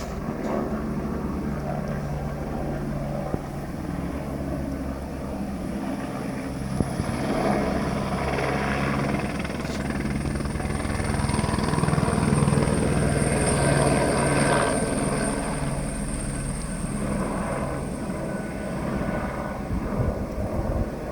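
Helicopter flying, a steady pulsing rotor beat that grows louder toward the middle and then eases off, with a thin high whine over it.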